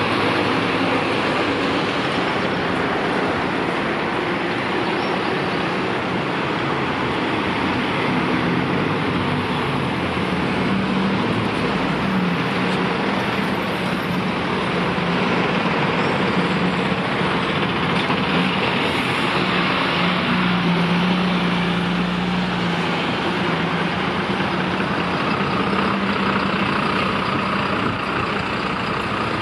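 Diesel engines of fire engines and an emergency ambulance driving past one after another in a slow column, a steady engine hum mixed with road traffic noise.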